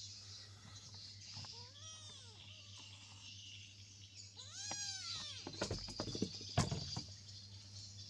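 A kitten meowing twice, each call rising then falling in pitch, the second one louder. It is followed by a cluster of sharp knocks about two-thirds of the way through, over a steady high insect chirring.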